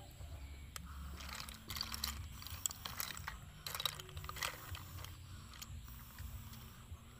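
Boiled snail shells clicking and clattering as they are picked from a pile on a metal tray and worked with a toothpick, in irregular sharp clicks.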